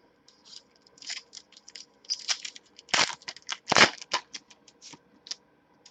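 Trading cards and their packaging being handled: irregular light scraping, rustling and clicking, with two sharper knocks about three and four seconds in.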